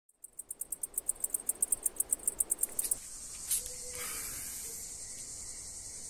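Cicada song: a high, rapid pulsing of about eight pulses a second, which changes abruptly about three seconds in to a steady high buzz.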